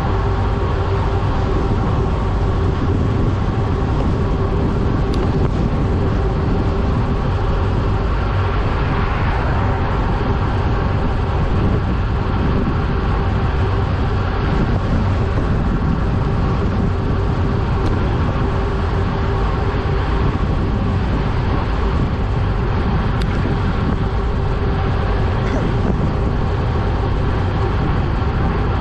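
Steady wind rush and tyre road noise from a road bike descending at about 25 to 30 mph, with the wind buffeting the bike-mounted camera's microphone. A steady hum runs underneath.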